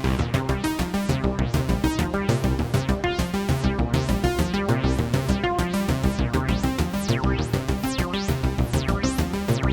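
Sequenced analog synthesizer jam: an Arturia MiniBrute 2S bassline with Moog Mother-32 and DFAM (analog percussion synthesizer) patterns, with reverb. It plays as a steady fast pulse of notes with sweeping filter tones.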